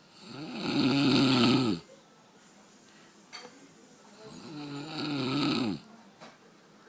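Snoring: two long snores about four seconds apart, each one pitched and arching up then down, the second a little quieter than the first.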